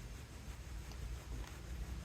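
Faint chewing of a soft-baked breakfast bar: a few soft mouth clicks over a steady low hum.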